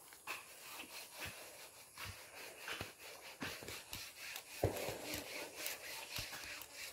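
Faint slurping and handling noises as a young coconut is drunk from: scattered small clicks and wet sounds, with one louder short rustle about two-thirds of the way through.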